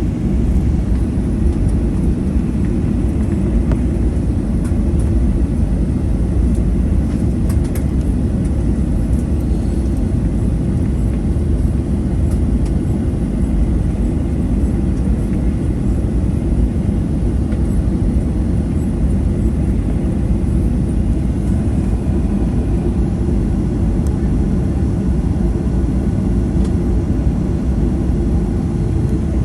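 Steady low rumble inside the cabin of a taxiing Boeing 737-800, its CFM56-7B engines at idle thrust.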